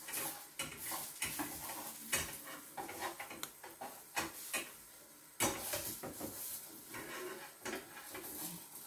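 Cooking utensils scraping and clicking against a frying pan as a banana pancake is worked loose for flipping, over a faint sizzle of it frying in oil.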